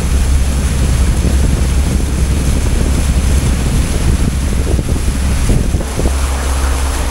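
Passenger ferry under way: a steady low engine drone, with wind buffeting the microphone and water rushing past the hull.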